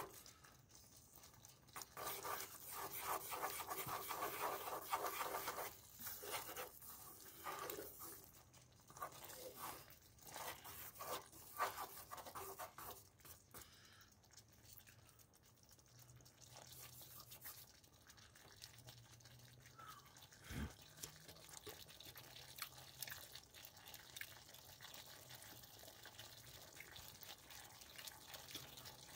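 Meatballs in thick tomato sauce simmering in a pan, the sauce bubbling and spattering while a wooden stick stirs and scrapes through it. It is busier for the first dozen seconds, then settles to a quieter simmer, with a single knock about two-thirds of the way in.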